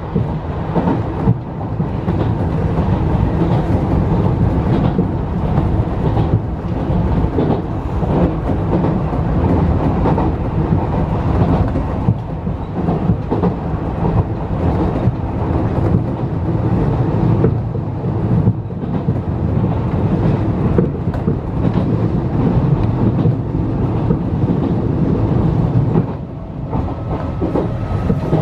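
Enshu Railway 2000 series electric train running along the line, heard from inside the front cab: a steady rumble of wheels on the rails. The rumble dips briefly near the end.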